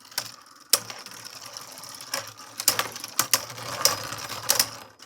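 Two Beyblade Burst spinning tops, Ultimate Valkyrie and King Helios, whirring in a stadium, with repeated sharp clacks as they collide.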